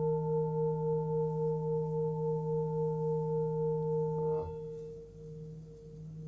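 A 21.7 cm Tibetan singing bowl tuned to 158 Hz (D#) ringing with a steady low hum and higher overtones that pulse in a slow wah-wah beat. About four seconds in, there is a brief rustle and the higher tones stop abruptly, leaving the low hum fading and wavering.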